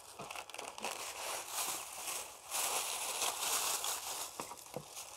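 Thin plastic bag crinkling in bursts as it is handled and set down on a tray, with a few light knocks near the end.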